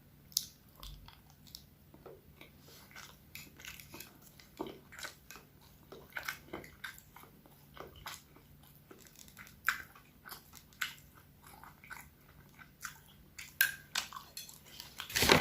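A person chewing food close to the microphone, with many small irregular mouth clicks and smacks.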